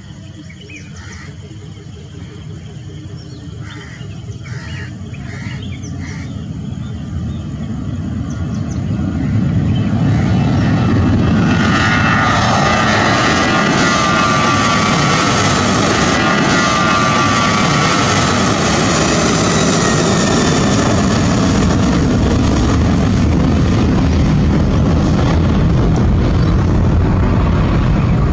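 Boeing 737-800's CFM56-7B jet engines at takeoff thrust, growing steadily louder over the first ten seconds as the jet rolls and lifts off, then a loud, steady rumble as it climbs past. A whining tone rides over the rumble from about twelve seconds in and falls in pitch as the jet goes by.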